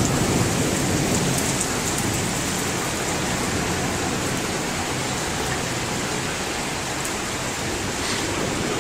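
Heavy rain pouring steadily in a thunderstorm, an even hiss of water.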